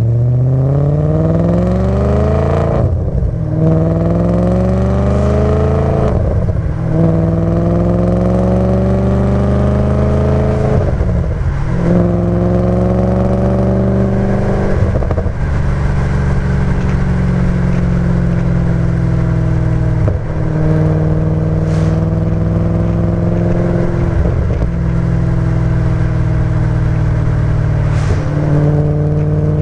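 Audi B7 RS4's 4.2-litre V8 through a Milltek cat-back exhaust, pulling through the gears. The note climbs, then breaks off briefly at each gear change, about seven times. Later it holds a steadier pitch between shifts.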